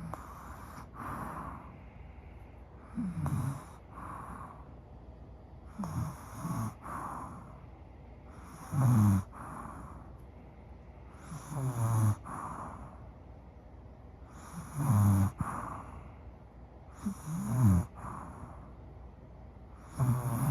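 A woman snoring steadily in her sleep, one loud rasping snore about every three seconds.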